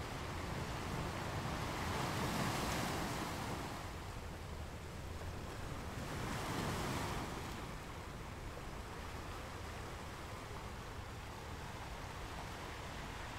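Ocean surf breaking on a beach: a steady wash of waves, swelling louder as a wave breaks about two seconds in and again about six to seven seconds in.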